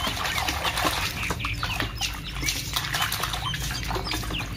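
Water splashing and sloshing in a tub as a plastic toy rifle is scrubbed by hand in it, with many small irregular splashes and drips.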